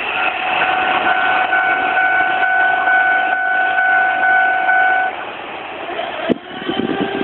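Japanese level-crossing alarm ringing a steady, rapidly repeating two-tone bell over the noise of a passing JR Ome Line electric train; the bell and the train noise stop together about five seconds in, and a sharp click follows near the end.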